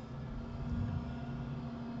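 Steady low hum and hiss of room and microphone noise, with a faint steady hum note that comes in about half a second in and fades near the end.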